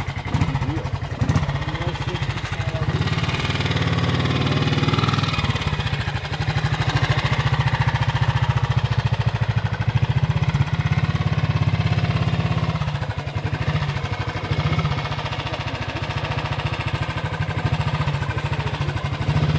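Old motorcycle engine running with a steady, rapid firing beat. It gets louder about six seconds in and eases off around thirteen seconds.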